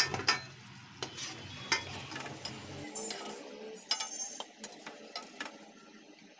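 A metal slotted spoon clinking and scraping against an aluminium kadhai as deep-fried samosas are lifted out of the oil. The clicks are scattered and sharp, with a quick run of them about four seconds in.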